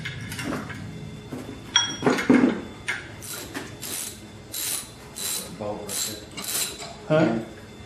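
Hand ratchet clicking in short repeated strokes, about two a second, loosening a bolt at the front of a Cummins 5.9 engine block. A few ringing metal clinks come about two seconds in.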